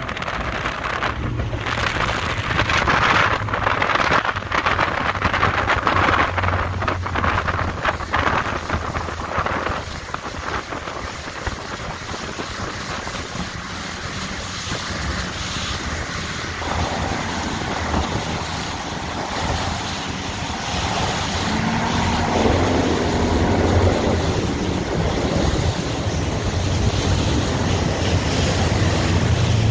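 Outboard motor running steadily as a speedboat planes through choppy water, with the rush of the wake and spray and heavy wind buffeting on the microphone, gustiest in the first third.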